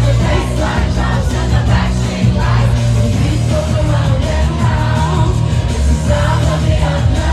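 Live pop music through a concert PA: a woman singing over a band with a heavy, steady bass beat.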